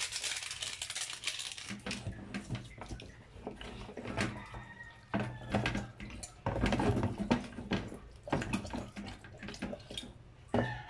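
Hands rubbing and turning a raw whole chicken in a plastic basin of water: irregular wet squelches, slaps and small splashes. A steady hiss runs through the first second or two.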